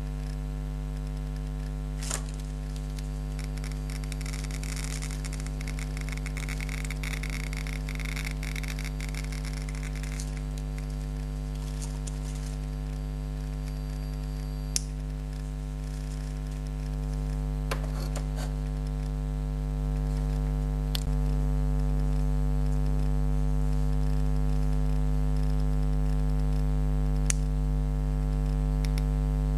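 Steady electrical mains hum with a handful of sharp, irregularly spaced single clicks from a homemade Geiger counter, each one a detected radiation count at a sparse, background-like rate. From a few seconds in there is a stretch of rubbing noise as hands handle the counter's metal tube.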